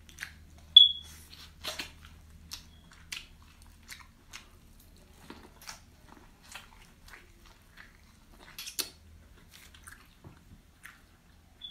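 A person biting and chewing corn on the cob: irregular sharp clicks and smacks, the loudest about a second in, with another louder cluster about three-quarters of the way through.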